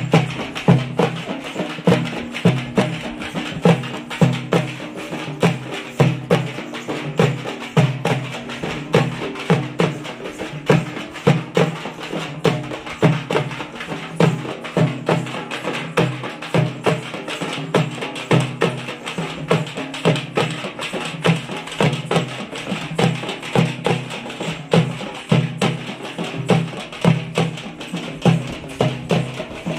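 Frame drums beaten in a fast, steady rhythm of sharp, ringing strikes, the drumming that accompanies the dancing of the Muharram standards.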